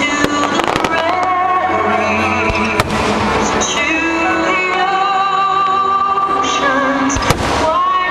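Music with a singing voice over a fireworks display: firework shells bursting and crackling, with sharp bangs near the start, about three seconds in and again about seven seconds in.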